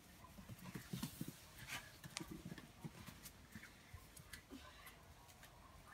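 Faint, scattered light taps and clicks from a young cocker spaniel puppy moving about on stone paving slabs while playing with a small tennis ball.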